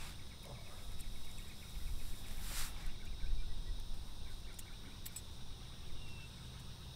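Insects chirring steadily over a low rumble of wind, with a few faint clicks and a brief rustle about two and a half seconds in.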